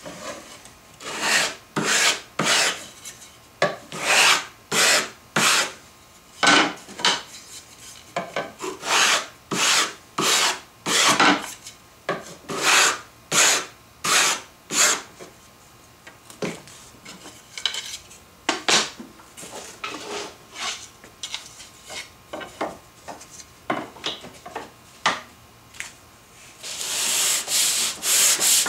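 Hand sanding wood with a wing-handled sanding block and sandpaper: separate rasping strokes, one or two a second, some fainter, then quick back-and-forth strokes near the end.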